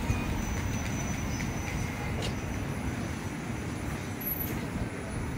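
Steady low rumble of a BYD electric city bus and street traffic, with a faint high whine that fades out about halfway through.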